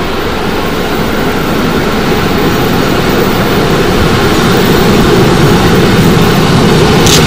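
BLS push-pull passenger train approaching on the rails, its wheels rumbling steadily and growing louder as it nears. A single sharp click sounds near the end.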